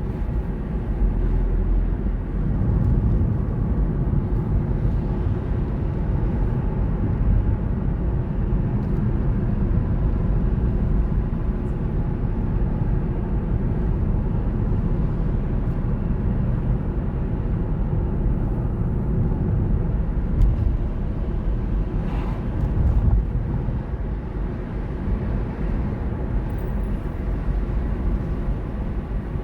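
A car driving steadily, with a continuous low rumble of road and engine noise. A couple of brief, sharper sounds stand out about twenty seconds in.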